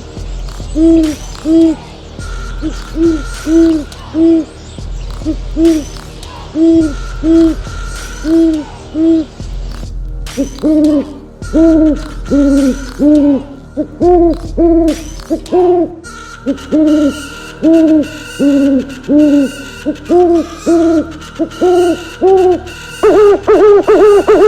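Owl hooting: a long series of short, arched hoots, at first mostly in pairs, coming more often after about ten seconds and turning into a quick run of hoots near the end.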